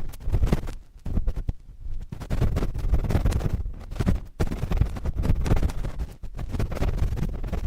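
Cotton swab scratching and rubbing directly against a microphone, as in ASMR ear cleaning. It makes a dense, irregular scratching with a heavy low rumble from the contact, broken by a few brief pauses.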